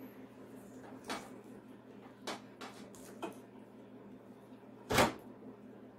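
Metal computer power supply case being handled, with a few light knocks and clicks as it is turned over in the hands, then one much louder thump about five seconds in.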